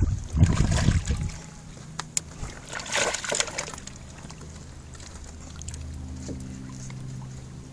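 Water splashing and trickling against a kayak, with a brief low rumble about half a second in and a short splash around three seconds. A low steady hum sets in from about four seconds.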